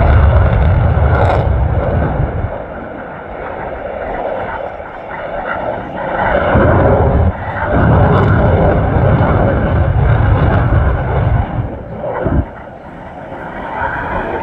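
An airplane's engines roaring as it flies past, with a deep rumble that swells twice and drops away suddenly near the end.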